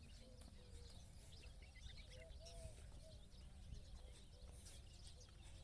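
Faint outdoor ambience of scattered bird calls, short chirps and low calls, over a steady low rumble.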